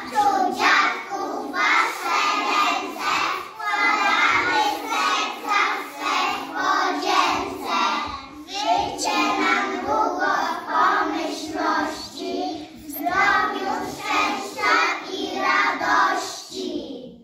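A group of preschool children singing a song together in unison.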